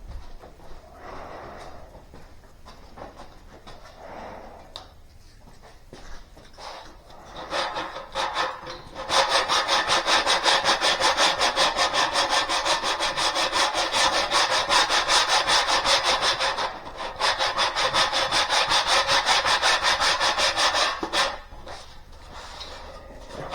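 Sanding cured body filler on a car body panel: soft, uneven rubbing at first, then about eight seconds in a loud, fast, even rhythm of rasping sanding strokes that pauses briefly twice.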